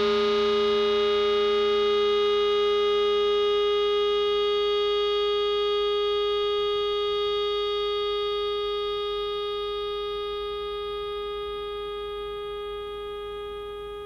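Nylon-string guitar played through effects, its last note held as one steady, ringing tone that slowly dies away; a lower part of the note fades out about halfway through.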